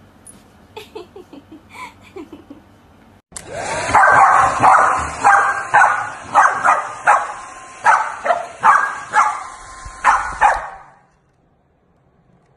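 A husky-type puppy yipping faintly a few times, then a corgi barking repeatedly, about a dozen sharp barks, at a hair dryer blowing toward it. The dryer's steady rush starts abruptly about three seconds in and cuts off near the end.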